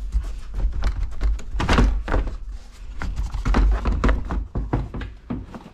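Stock plastic air box of a Ford Bronco being tugged and rocked in its mounts, giving irregular hollow plastic thunks and knocks. It won't come free because a plastic push-pin clip underneath is still fastened.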